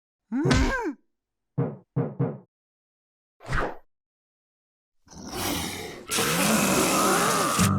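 Cartoon character vocal noises: a gliding cry, three quick short squeaks, then one more short call, followed about five seconds in by a loud burst of hissing noise with a voice gliding inside it.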